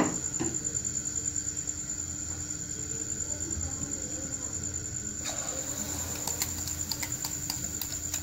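Egg-and-milk-powder halwa batter being poured into hot cooking oil in a steel kadai: about five seconds in it starts sizzling, with a hiss and many small crackles. A steady high-pitched trill runs underneath throughout.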